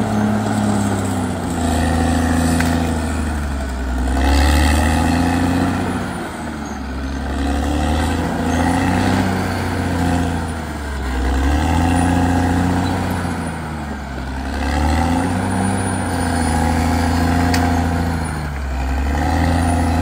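Caterpillar D6R XL crawler bulldozer's diesel engine running under varying load as the dozer works the dirt. Its pitch sags and climbs back every three to four seconds.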